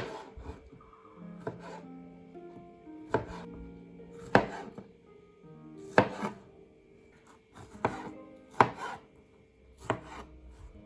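Kitchen knife slicing strawberries and knocking on a plastic cutting board: about nine sharp chops, one every second or two.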